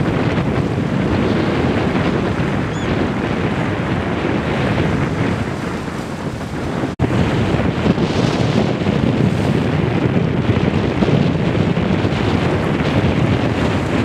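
Wind buffeting the microphone over the wash of sea waves, a loud, steady rumble. It drops out for an instant about seven seconds in.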